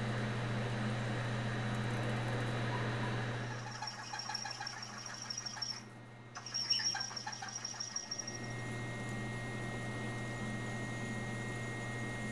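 Milling machine spindle running as a twist drill bores a hole into an aluminium block, a steady motor hum with the drill's cutting noise over it. The sound changes abruptly about four seconds in, with a high thin ringing and crackle of chips, breaks off briefly near six seconds, and returns to the steady hum near eight seconds as the work moves to a larger drill.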